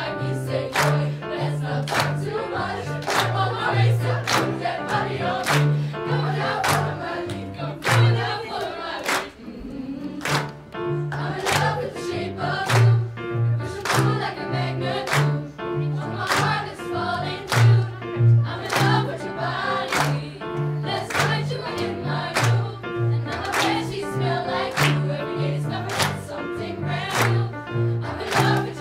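Youth choir singing to electric keyboard accompaniment with a steady bass line, the singers clapping their hands on the beat. A brief drop-out comes about nine seconds in, then the song carries on.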